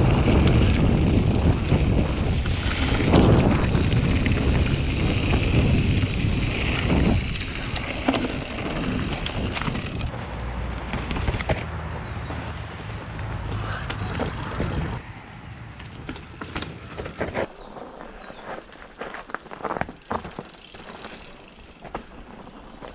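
Mountain bike ridden fast down a rough dirt and stone trail, giving a loud, dense rush of riding noise. Partway through this gives way to a quieter stretch with scattered sharp clicks and knocks as bikes roll over stones toward the microphone.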